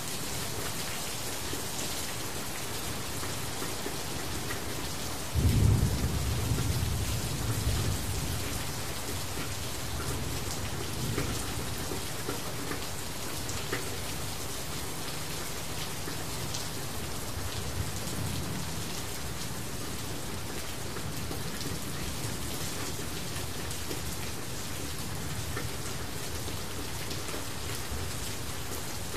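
Steady rain falling. About five seconds in, a sudden low rumble starts and dies away over a couple of seconds, with a fainter rumble later.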